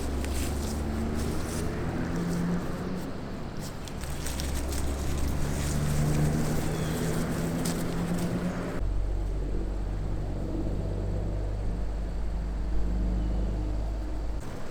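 A steady low engine-like hum, with light rustling and small clicks over it. About nine seconds in the sound changes abruptly to a deeper, smoother hum.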